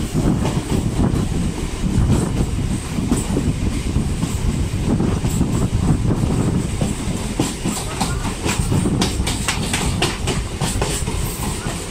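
Electric multiple-unit suburban train running, heard from its open doorway: a steady wheel-on-rail rumble with clickety-clack over the rail joints, and sharp clicks coming thick in the second half.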